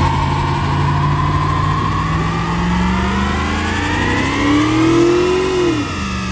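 Pickup truck engine revving hard during a burnout, the rear tyres spinning in smoke. The revs climb for several seconds, then drop away shortly before the end.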